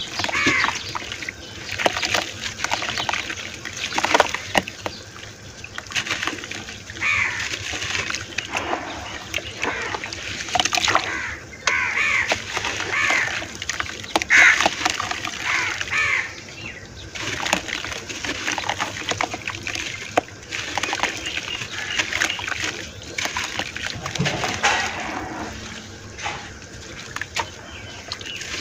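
Hands squeezing and crumbling chunks of gritty red dirt into a bucket of muddy water: irregular splashes and sloshing mixed with the wet crunch of the dirt breaking apart.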